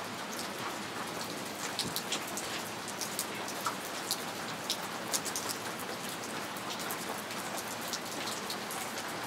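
Steady rainfall, with many sharp separate drop ticks scattered through a constant hiss.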